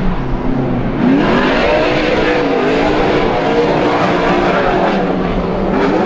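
Ford Mustang drift car's engine revving hard mid-drift, the revs climbing sharply about a second in and then swinging up and down as the throttle is worked, with tyres squealing.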